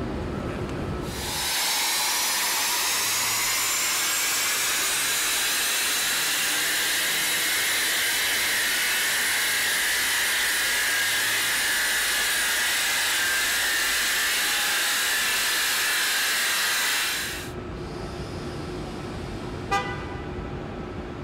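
A BMW X4 running on a roller test stand: a steady rushing hiss of tyres and rollers with a faint high whine slowly rising in pitch. It starts abruptly about a second in and cuts off abruptly near the end, followed by a single sharp click.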